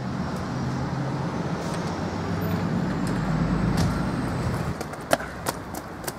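A small car driving slowly past close by on wet asphalt, its engine hum and tyre noise swelling to a peak about three and a half seconds in and then fading away. Near the end a few sharp clicks stand out.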